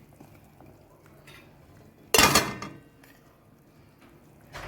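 Kitchen cookware clattering: one loud metallic clank about two seconds in that rings briefly, then a lighter knock near the end.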